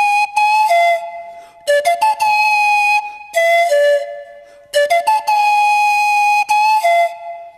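Background music: a melody on a flute-like wind instrument, held notes in short phrases with brief pauses between them.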